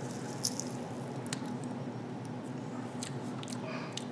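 A few faint mouth clicks and smacks from tasting dry barbecue rub off a fingertip, over a low steady room hum.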